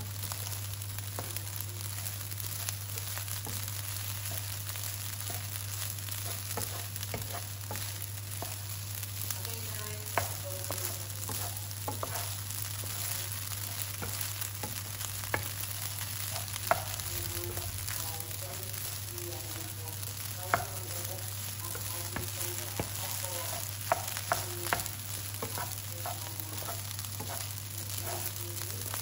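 Rice frying in oil in a non-stick frying pan, a steady sizzle, while a wooden spatula stirs it, scraping and giving sharp taps against the pan, more of them in the second half. A steady low hum sits underneath.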